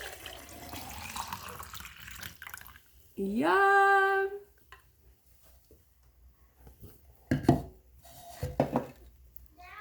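Liquid running and splashing for the first few seconds, then a drawn-out "Yum!" and two short sharp knocks near the end.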